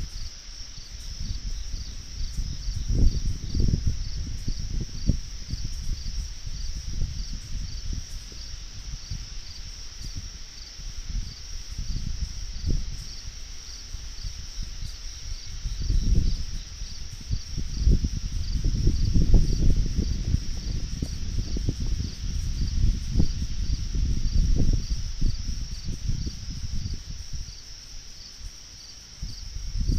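Night insects chirping in a steady high, pulsing trill, over low rumbling that swells and fades several times, loudest about two-thirds of the way through: thunder rolling from an approaching supercell storm.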